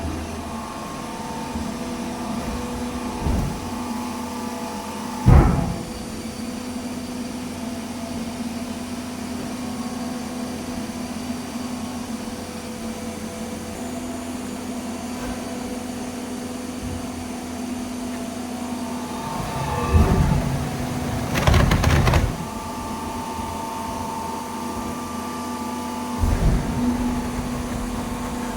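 Hydraulic paper baler running with a steady motor-and-pump hum. A few louder knocks cut through: a sharp one about five seconds in, and a longer clattering stretch around twenty to twenty-two seconds.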